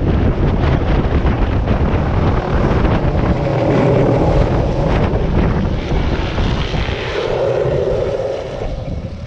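Helicopter in flight: loud, steady rotor and engine noise, with wind buffeting the microphone.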